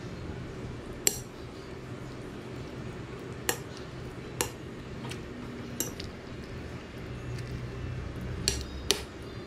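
A metal spoon stirring soup in a ceramic bowl, clinking against the bowl about six times at irregular intervals.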